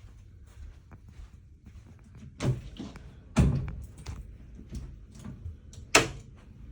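A cabin's sliding balcony door being worked: three sharp knocks, about two and a half, three and a half and six seconds in, the last the loudest, over a low steady rumble.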